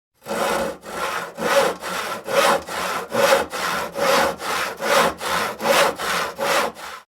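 Hand saw cutting through wood in a steady back-and-forth rhythm, about two strokes a second, every other stroke louder.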